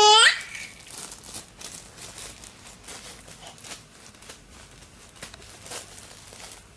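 A baby's short, high-pitched laughing squeal right at the start, wavering and rising in pitch, then only faint rustling and small clicks.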